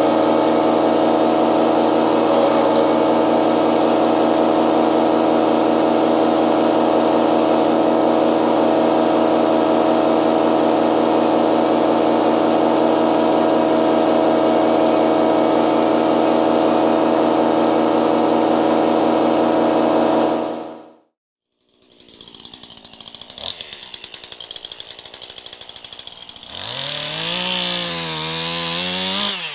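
Chainsaw running at a steady high speed for about twenty seconds, then cutting off abruptly. After a short gap, a chainsaw is heard again, its pitch rising and falling as it is revved and cuts into wood.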